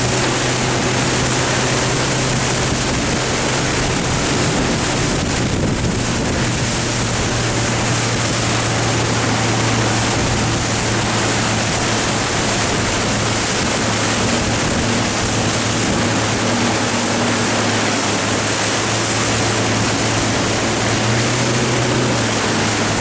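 BRP Sea-Doo 100 hp jet engine of a rigid inflatable boat running at a steady speed, its low hum held nearly constant under a loud rush of water and wind.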